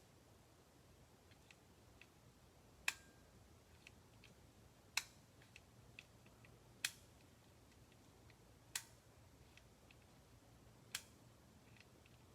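Sharp clicks, five of them about two seconds apart, with fainter ticks in between, over near silence.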